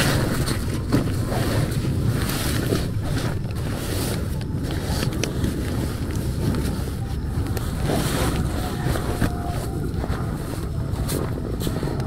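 Rustling and shuffling as a backpack and bedding are moved about inside a silnylon tent, over a steady low rumble.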